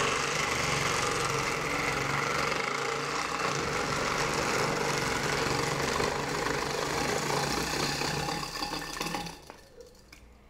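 Electric ice shaver running while ice is pressed into its blade: a steady motor hum under the scraping, crunching of ice being shaved into fine snow. It stops about a second before the end.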